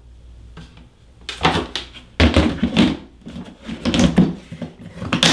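Hygrometer being slid into a clear plastic storage tub, then the tub's snap-on lid being set on and pressed down: a run of plastic scrapes and clunks starting about a second in, the sharpest about two seconds in.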